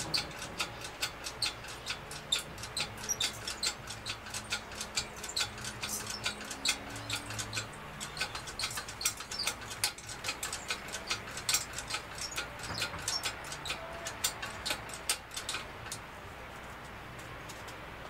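Rapid, regular metallic clicking, about three to four clicks a second, which stops a couple of seconds before the end.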